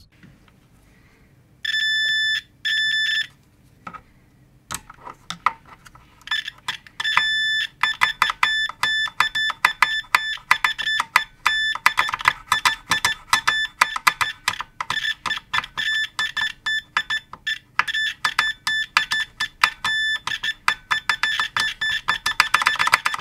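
Multimeter continuity beeper sounding as its probes touch the VFD's earth screw terminals: two short high beeps, then from about seven seconds in a longer beep and a long run of rapid, stuttering beeps as the probe contact makes and breaks. The beeping shows the two earth terminals are connected.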